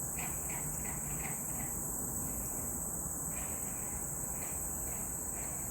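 Steady, high-pitched chorus of insects such as crickets, with faint short chirps coming now and then.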